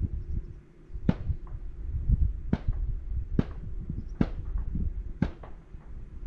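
Low, uneven rumble of wind buffeting the microphone, with about five sharp clicks spaced roughly a second apart.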